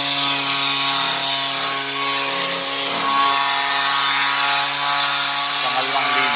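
Electric angle grinder running steadily with an improvised flap disc, sanding weld heat-tint off stainless steel round tube: an even motor whine over the hiss of abrasive on metal.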